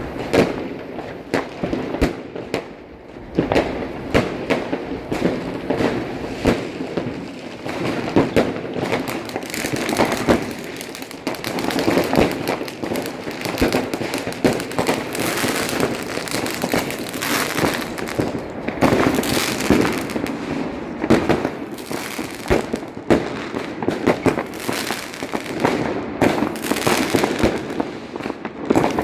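New Year's fireworks going off without pause: many overlapping bangs and crackles, with a brief lull about three seconds in.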